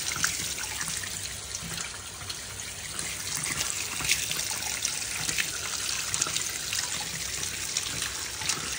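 Tap water pouring in a steady stream onto fish in a basin, splashing and trickling over them, with a few faint knocks.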